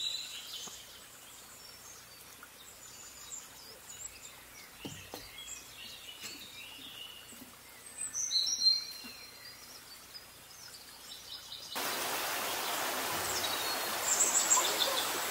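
Songbirds singing in short chirping phrases, with bursts at the start, about eight seconds in, and again near the end. About twelve seconds in, the steady rush of a shallow creek running over rocks starts abruptly and continues under the song.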